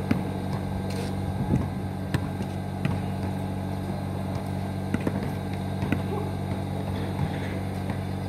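A steady low machine hum of several droning tones, with scattered sharp knocks of a basketball bouncing on an asphalt court every second or so.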